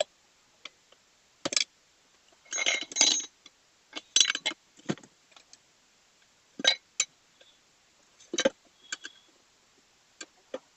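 Steel tyre levers clinking and knocking against a motorcycle wheel rim as the tube-type tyre's bead is pried off. Irregular sharp metal clinks, some briefly ringing, with quiet gaps between.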